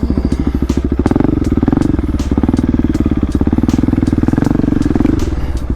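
Supermoto motorcycle engine running under steady throttle on a trail, a fast even pulse that holds then eases off near the end, with scattered small clicks and knocks.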